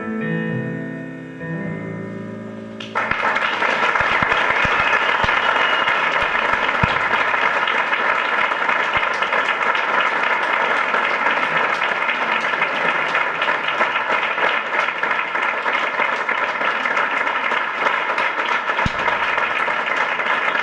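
Last notes of a song played on a Kurzweil digital stage piano, dying away, then audience applause breaking out suddenly about three seconds in and going on steadily.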